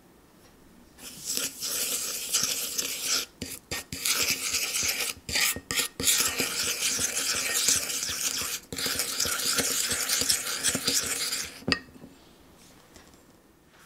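Wooden spoon stirring and scraping a paste of ground spices and oil against the bottom of a small pan: a steady rasping with a few short breaks. It starts about a second in and stops with a light knock a couple of seconds before the end.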